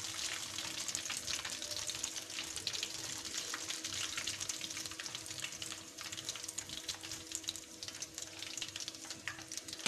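Hot cooking oil in a karahi sizzling and crackling after frying fish: a steady hiss dense with small pops, easing slightly in the second half.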